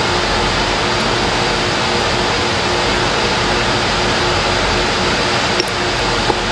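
A steady, even rushing noise with a faint steady hum, and two light clicks near the end.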